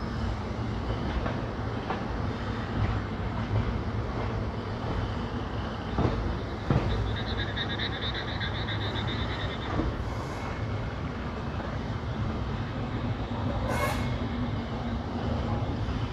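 A train running over the rails, heard from on board: a steady low rumble, with two sharp knocks about six seconds in. A high pulsing squeal follows for a couple of seconds, and there is a short hiss near the end.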